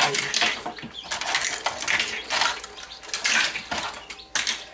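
Empty chicken eggshells clinking and crackling against each other and the plastic incubator tray as they are picked up by hand: an uneven run of clicks and rattles.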